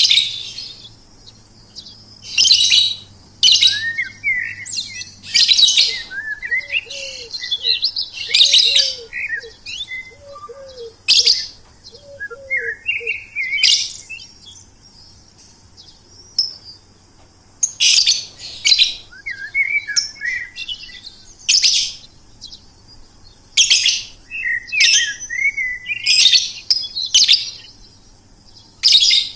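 Songbirds singing: bursts of high, rapid chirps and trills repeating every second or two, with lower sweeping notes in between. Near the middle, a run of short, low, down-slurred calls repeats about twice a second for several seconds.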